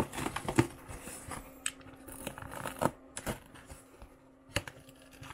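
Box cutter scraping and slicing along the packing tape of a cardboard shipping box, with hands knocking and handling the box. It comes as a busy run of scrapes and clicks over the first three seconds, then a few separate sharp clicks.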